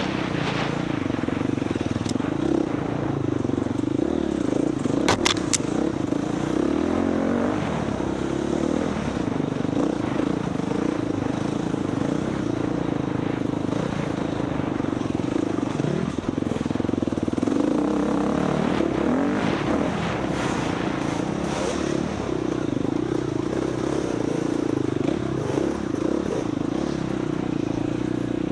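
Four-stroke dirt bike engine running as it is raced off-road, the pitch rising and falling with the throttle, with a few sharp clicks about five seconds in.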